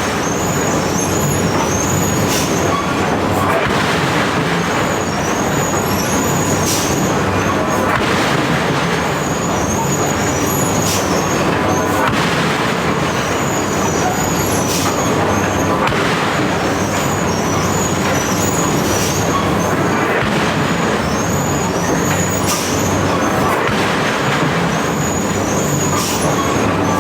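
Machine striking iron: a continuous loud din of running machinery with sharp metal strikes landing every one to three seconds.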